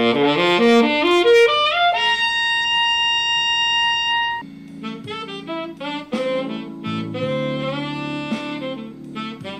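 Tenor saxophone played through a Sugal 3D-printed metallic Yeti mouthpiece. It opens with a fast run climbing into the altissimo and holds a long high note. From about four seconds in it plays a melodic phrase in the middle range over lower sustained tones.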